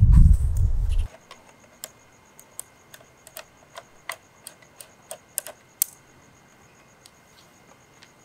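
Irregular sharp clicks of laptop keys and buttons, about a dozen over some four seconds, with crickets chirping steadily in the background. The first second is a low rumble that cuts off abruptly.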